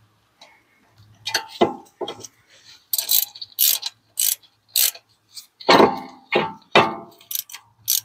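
Hand ratchet clicking in a dozen or so short, uneven strokes, driving in the 6 mm Allen retaining bolt that holds a new brake rotor to the hub.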